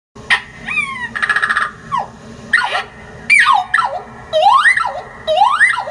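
Bird calls edited together as a creature sound effect: a few sharp falling whistles, a short buzzy rattle about a second in, then louder swooping whistles that rise in pitch near the end.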